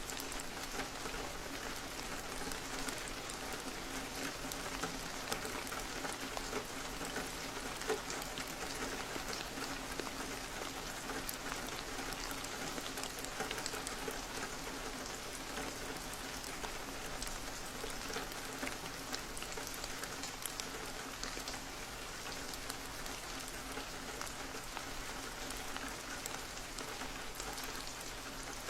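Steady rain on a window: an even hiss with many small, scattered drop ticks.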